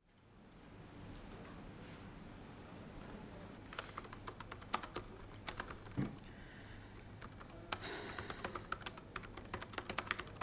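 Typing on a computer keyboard: quiet at first, then irregular runs of quick key clicks starting a little under four seconds in, with one duller knock in the middle.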